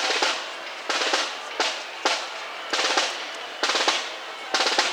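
Snare drum playing a cadence of short rolls and accented strokes, each burst a quick rattle, repeating about every half second to a second.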